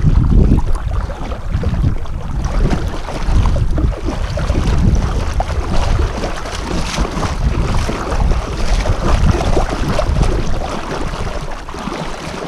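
Wind rumbling on the microphone, with water splashing and lapping as a hooked carp rolls and thrashes at the surface beside the canoe. The rumble eases off near the end.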